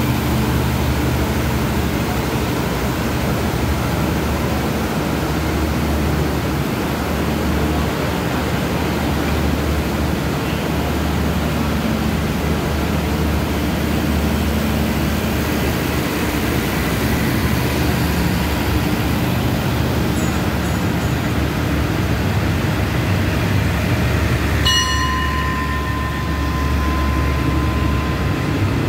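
Express passenger train's carriages rolling past the platform: a steady rumble with a low engine hum. Near the end a high steady tone sounds suddenly for about three seconds.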